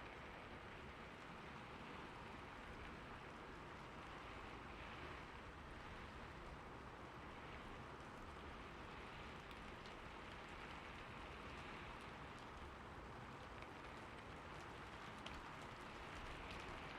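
Rain falling steadily on a roof: an even hiss with scattered light ticks of individual drops.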